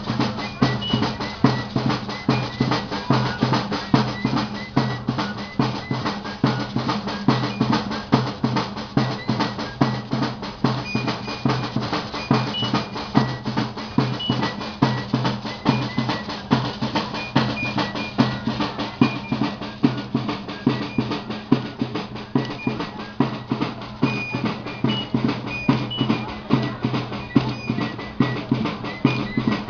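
Snare and bass drums of a 'tribo de índios' percussion group, played in a fast, steady rhythm with no break.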